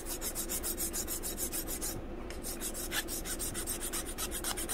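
A flat metal hand file rasping back and forth across a small piece of cured JB Water Weld epoxy putty, in quick even strokes about six a second, with a brief pause about two seconds in. This is a hardness test: the putty is hard but files.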